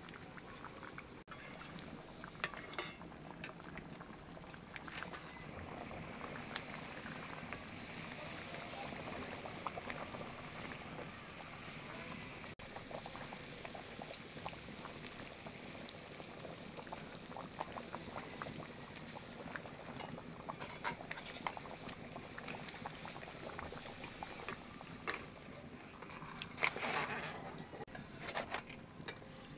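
Potato curry boiling in a large iron kadai, a steady bubbling with many small pops.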